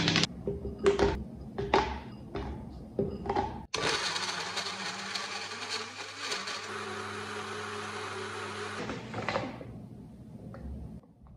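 Personal bottle blender running steadily for about five seconds, blending banana pieces and blueberries into a smoothie, then winding down. Before it starts there are several short knocks and clatters as blueberries are poured into the plastic blender bottle.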